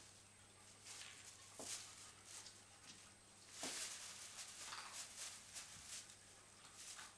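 Faint crinkling and rustling of a thin plastic bag as kittens paw and tumble in it, coming in short irregular bursts over a steady low hum.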